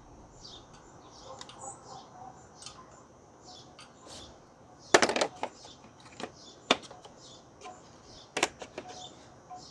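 Hand tools clicking and clinking on metal while undoing the headlight mounting, with a handful of sharp clicks about five, six and a half and eight and a half seconds in. Faint birds chirp in the background.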